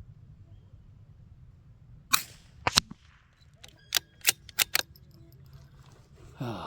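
Two sharp gunshot cracks about half a second apart, the second the louder, from a Mark II being fired. They are followed by a quick run of five smaller clicks.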